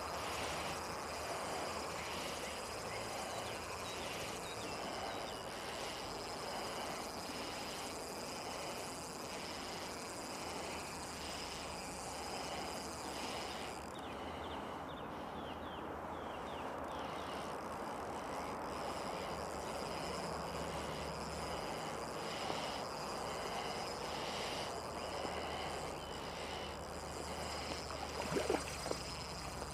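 Spinning reel wound in steadily, about a turn a second, against a hooked brown trout, with heavy nasal breathing close to the microphone over a steady outdoor hiss. Near the end there are a few louder splashes as the trout comes to the surface by the bank.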